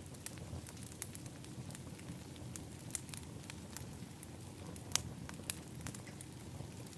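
Wood fire burning in an outdoor fire pit, crackling with irregular sharp pops over a steady low rumble; the loudest pop comes about five seconds in.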